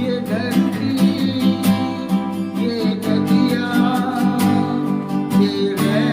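Acoustic guitar strummed with a plectrum in a steady repeating rhythm over sustained chords, with short single-note fill phrases worked in between the strums.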